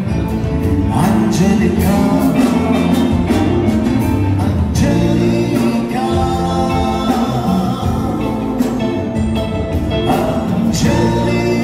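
Male lead vocalist singing a Sinhala song live with a band, over electric guitar and a drum kit keeping a steady beat.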